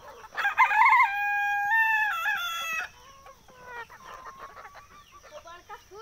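A desi rooster crows once, loud and long, starting about half a second in and breaking off abruptly near the three-second mark. Softer clucking and short calls from the hens of the flock follow.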